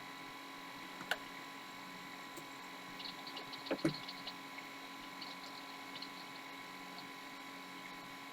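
Faint steady hum and whine of a running Apple Macintosh LC computer, from its fan and hard drive. A few soft clicks come over it, the loudest about four seconds in.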